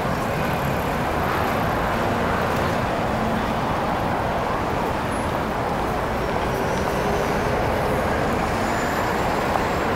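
Steady city street traffic noise, with cars and a bus passing.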